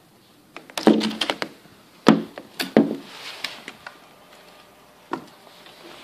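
Sharp clacks and knocks of a balcony door handle and latch as the door is unlatched and pushed open, several in the first three seconds and one more about five seconds in.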